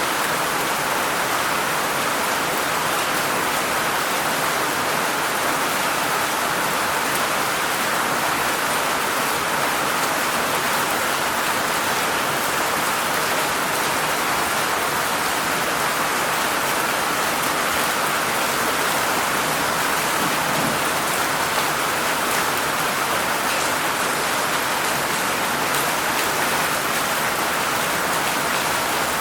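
Heavy rain falling steadily, a dense even hiss without let-up.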